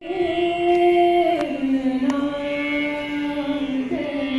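A woman singing slow, long-held notes into a microphone, her pitch stepping down twice in the first two seconds, with a couple of light drum strokes.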